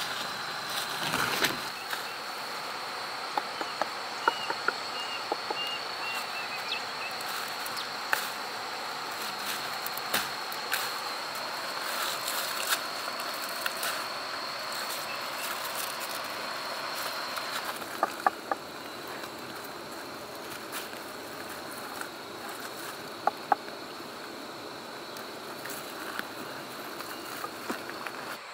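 Insects, such as crickets, giving a steady high-pitched drone, with scattered sharp clicks and knocks. A short run of small high chirps comes about four to six seconds in.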